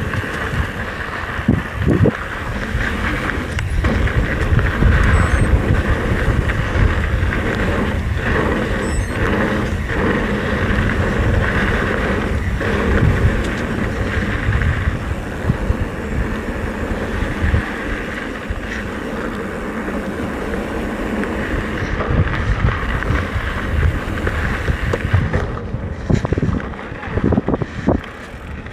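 Wind rushing over the microphone and tyre noise from a mountain bike rolling down a dirt trail, with frequent knocks and rattles as it goes over bumps.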